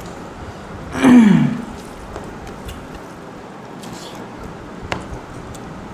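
A person's short vocal sound, falling in pitch, about a second in. A single faint click comes near the end, over a steady low background hiss.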